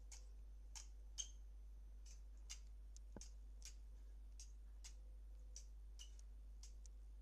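Cockatiel breathing hard, each breath making a faint, high-pitched click at about two a second, slightly irregular, with one louder click about a second in: a sign of shortness of breath (dyspnoea).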